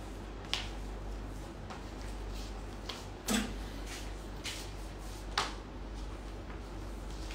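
A handful of short, sharp clicks and knocks, three of them louder, over a steady low electrical hum.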